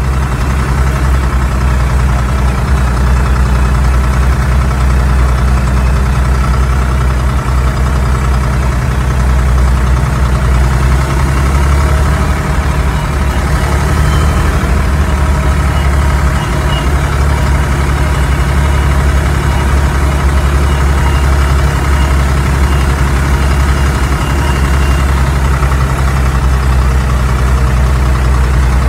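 Diesel tractor engine running steadily under load while climbing a steep road, heard from on board the tractor as a loud, low, even drone.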